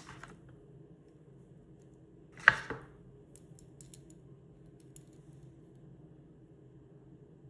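Copper-and-brass magnetic fidget ring being flicked: one sharp metallic click with a short ring about two and a half seconds in, a faint click at the start and a few light ticks after it, over a low steady hum.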